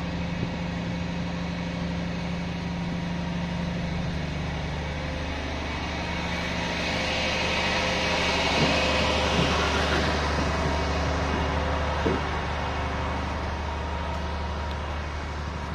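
Steady low hum of a berthed ship's on-board machinery running, with a broad hiss that swells for a few seconds in the middle.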